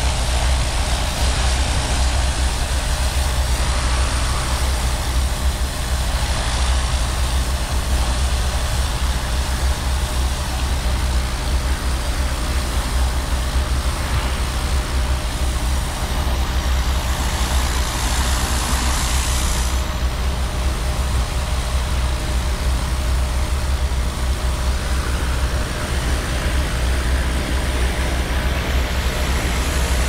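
Steam cleaning machine running steadily with a low engine hum, under the hiss of its lance spraying brickwork; the hiss brightens for a few seconds past the middle.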